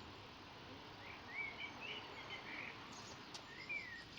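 A small bird chirping: a quick run of short chirps about a second in and another near the end, over steady outdoor background noise.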